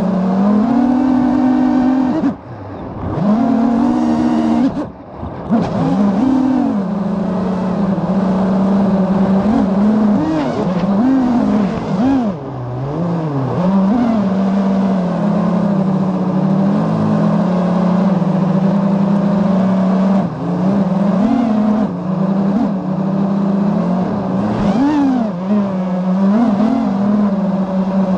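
FPV racing quadcopter's motors and propellers whining, heard from the onboard camera, the pitch rising and falling constantly with throttle. The sound drops away briefly twice a few seconds in.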